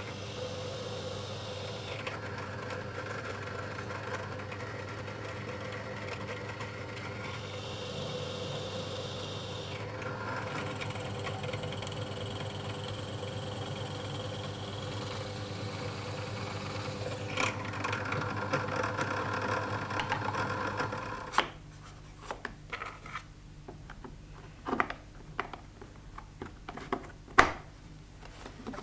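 Drill press running and boring counterbore holes into a hardwood block, the cutting noise changing as the bit is fed in and backed out. It stops about three-quarters of the way through, followed by scattered clicks and light knocks of metal parts being handled on a bench.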